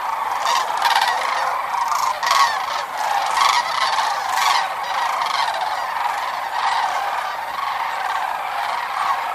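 A flock of sandhill cranes calling in flight, many birds at once, their calls overlapping into a steady chorus.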